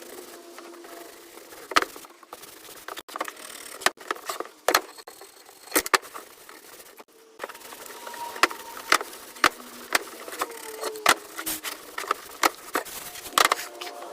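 Irregular sharp knocks and clicks, about fifteen, spaced unevenly over a faint steady background; they fit wooden pieces and tools being handled and set down during the build.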